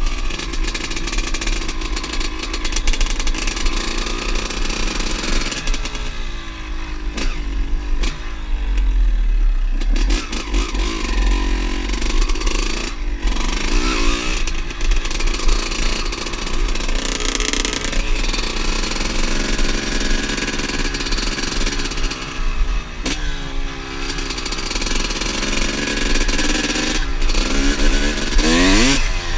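Two-stroke motorcycle engine running and revving, its pitch climbing and falling back again and again, with a steep climb near the end.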